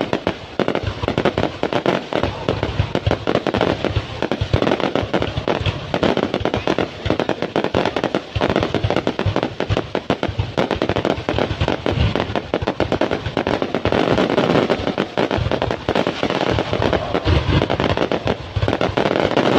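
Fireworks going off in a continuous barrage, many pops and bangs overlapping with dense crackling.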